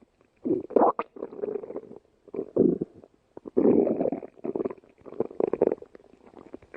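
Stomach growling: a string of irregular gurgling rumbles, about six of them, with short pauses in between.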